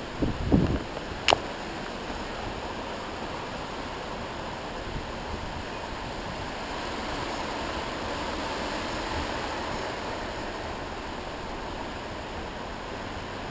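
Storm wind blowing hard and steadily, an even rushing hiss. A low buffet sounds just after the start, and a sharp click about a second in.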